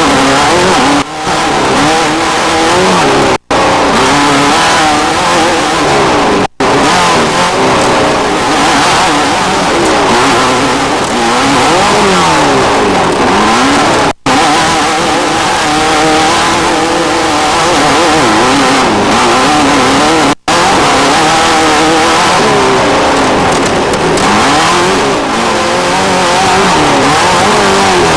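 Off-road desert race vehicle engines revving hard, their pitch rising and falling as they pass. The sound is a run of short clips, broken every few seconds by brief dropouts.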